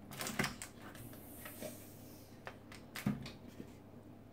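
Hands moving roast vegetables about on a hot foil-lined baking tray: scattered light knocks and foil rustles, a cluster near the start and the sharpest knock about three seconds in, with a soft hiss between them.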